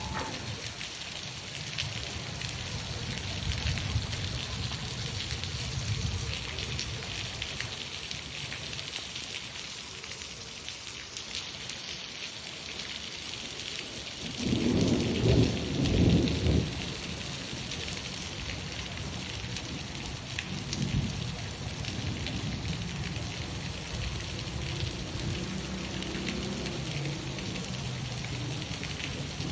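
Steady heavy rain hissing, with thunder rumbling low beneath it; a loud peal of thunder about halfway through, then lighter rumbles.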